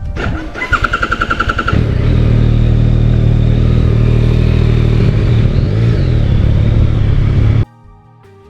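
Yamaha XSR900's 890 cc inline-three engine being started: the starter cranks with a pulsing whine for about a second and a half, then the engine catches and idles steadily, with a slight rise in pitch around six seconds in. The sound cuts off suddenly near the end.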